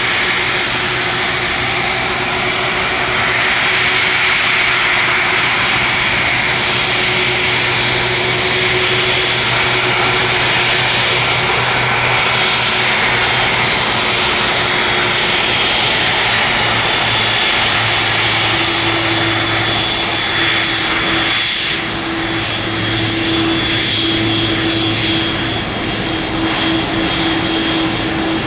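Boeing 747-400F freighter's four jet engines running loud and steady: a rushing roar with a high whine and a low hum in it. A steady mid-pitched tone joins a little past halfway.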